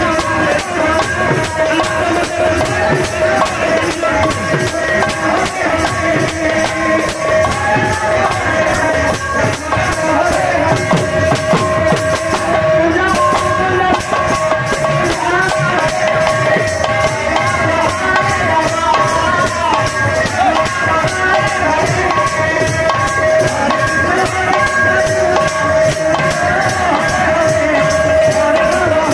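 Live kirtan music: large two-headed barrel drums played by hand in a fast, driving rhythm, with jingling metal percussion and a steady held note under a wavering melody.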